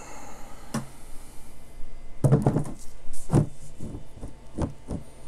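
Yellow acrylic cover of an Anycubic Photon Mono X resin printer being lowered over the machine and seated on its base, knocking and clattering several times. The cover sits loosely on the base rather than snugly.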